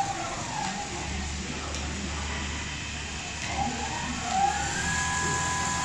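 Motor whine of a Richpeace automatic pattern sewing machine over a steady low hum. The whine drops in pitch as its motors wind down at the start, then rises again about four and a half seconds in as they speed back up.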